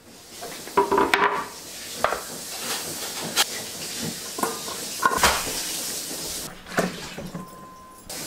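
Stainless steel bowl clanking and briefly ringing as it is handled, with pointed gourds being washed by hand in water in the bowl. A hiss of running water accompanies it and stops about six and a half seconds in.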